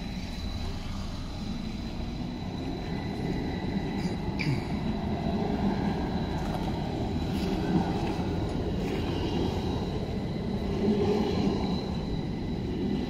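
A modern CAF-built low-floor tram rolling past at low speed: a steady rumble of steel wheels on rails, with a thin high steady tone above it and a brief sharp click about four and a half seconds in.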